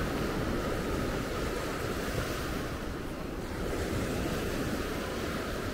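Small ocean surf breaking and washing up a sandy beach as a steady wash, with wind rumbling on the microphone.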